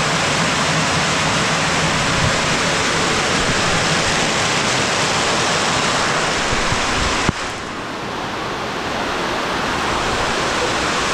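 Heavy downpour of rain, a steady loud hiss. A sharp click about seven seconds in, after which the rain sound drops a little and builds back up.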